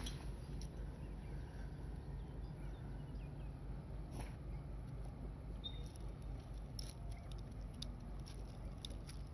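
Small waves lapping gently at a pebble shore: faint scattered ticks and clicks of water among the stones over a steady low rumble.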